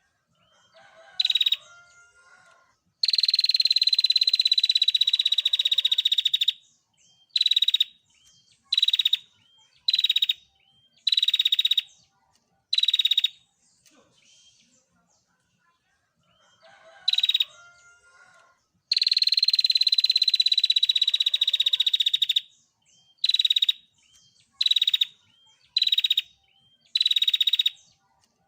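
Female prinia (prenjak) calling: a long, high, buzzy rattling trill of about three and a half seconds, then a run of short chirps about once a second. The same sequence comes again about halfway through.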